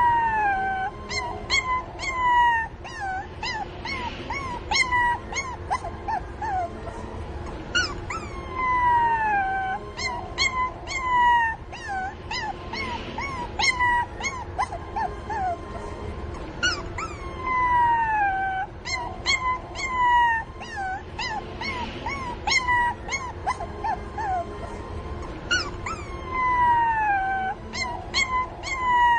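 Several young puppies whining and yelping in a steady chorus of high, short cries that slide down in pitch: distress calls for their mother. The same run of cries comes round again about every eight to nine seconds.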